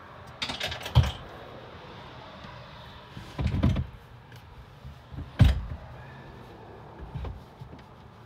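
Handling noise from a phone being set down: a series of knocks and thumps with rubbing and scraping against a hard surface, the sharpest knocks about a second in and just past the middle.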